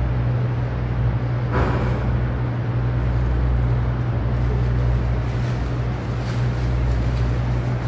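Steady machine hum with an even hiss, constant in level, typical of room air conditioning or ventilation, with a brief louder rustle about one and a half seconds in.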